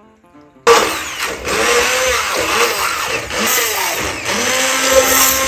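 Electric immersion (stick) blender switching on abruptly and running as it purees cooked zucchini in a steel pot, its motor pitch rising and falling as the load changes.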